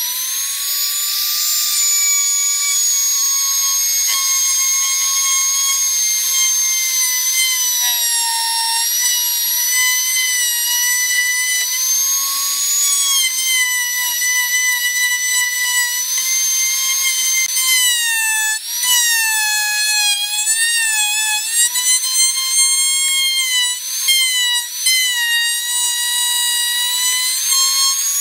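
Compact trim router running with a high, steady whine. Its pitch sags and wavers again and again in the second half as the spinning bit bites into the wood, cutting a shallow recess.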